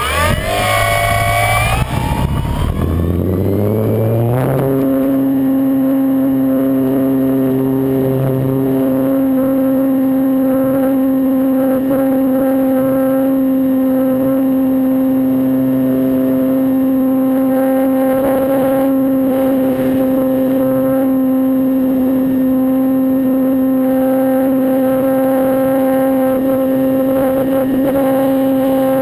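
Motor of an RC S.E.5a scale model biplane throttling up: its pitch climbs steeply over the first four or five seconds, then it runs steadily at high speed.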